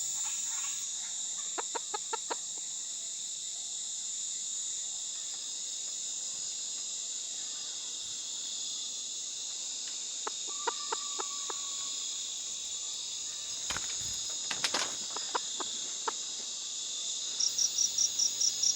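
Steady night chorus of crickets and other insects, with scattered soft clucks from chickens and a couple of knocks about three quarters of the way through. Near the end, a cricket's rapid pulsing chirp starts up close by.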